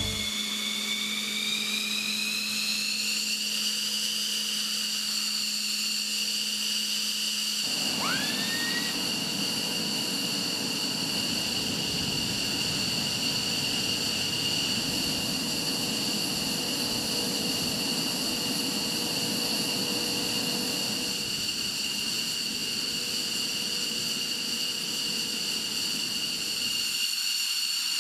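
F-15E Strike Eagle jet engines running on the ground with a steady high-pitched whine. About eight seconds in, a low hum stops, a second whine sweeps quickly up in pitch and a steady rushing noise joins in.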